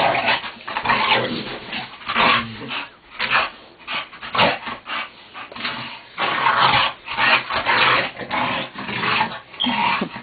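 Bulldog making play noises in a run of short, irregular, rough bursts while wrestling with a person.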